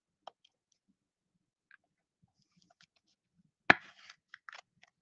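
A trading card being handled and slid into a rigid clear plastic top loader: a few faint clicks, then a sharp click about three-quarters of the way in followed by about a second of scraping and rustling as the card slides into the holder.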